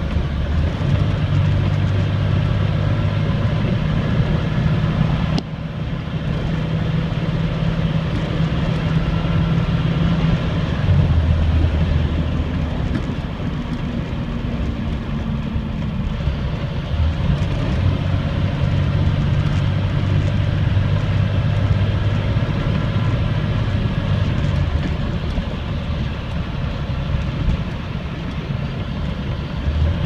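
Diesel engine of a 2005 Blue Bird Vision school bus running under way, heard from inside the cab with road noise. The engine's low drone steps down in pitch about eleven seconds in and back up a few seconds later as speed changes.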